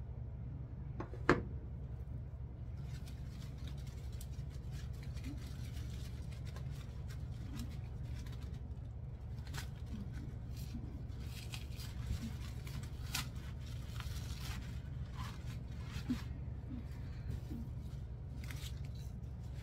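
Rustling and light clicks of artificial flower stems and foliage being handled and pushed into a floral arrangement, with a sharper click about a second in, over a steady low hum.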